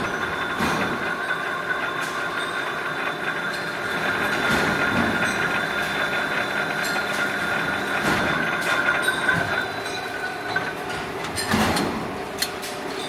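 Metal spinning machine forming a steel V-groove pulley, running with a steady high squeal from the turning workpiece and tooling over the rush of coolant spray. The squeal stops about ten seconds in, followed by a few sharp knocks as the tooling lifts off the part.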